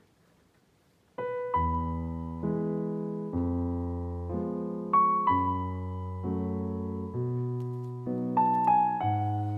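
Near silence, then solo piano background music begins about a second in: a slow, gentle piece of struck chords that ring and fade, one new chord roughly every second.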